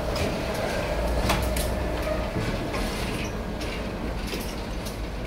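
Two coupled diesel locomotives, a CC 206 and a D301 shunter, rolling slowly past: a steady low engine rumble with scattered clanks and clicks from the wheels and running gear.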